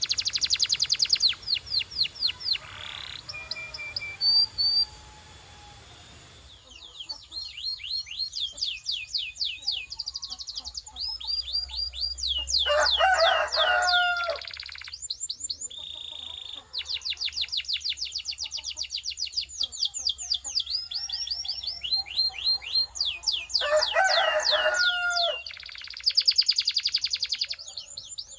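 Domestic canary singing: fast rolling trills of rapid repeated high notes sweeping downward, phrase after phrase with short breaks and a few held whistled notes. Twice a lower, rougher call cuts in.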